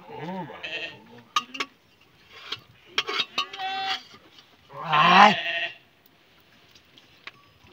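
Sheep bleating: several separate wavering calls, the loudest about five seconds in. A few short sharp clicks come about a second and a half in.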